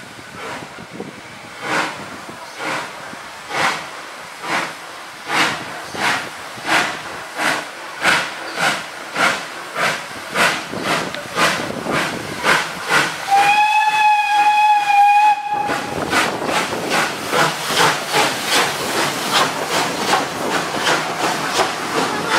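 Steam locomotive working hard under steam, its exhaust chuffs quickening from about one to about three a second as it gathers speed. About halfway through it gives one steady whistle blast lasting about two seconds, and after it the chuffing sounds closer and louder as the engine passes.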